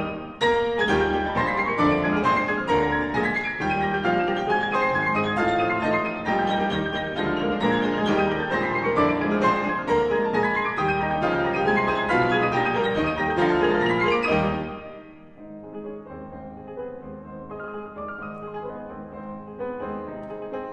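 Two grand pianos played eight-handed by four pianists in a classical piece: loud, dense playing with repeated sweeping runs up the keyboard, dropping suddenly to a quiet passage about two-thirds of the way through.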